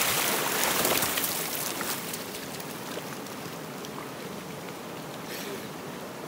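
Water splashing and spattering, dying away over about two seconds into the steady rush of running creek water.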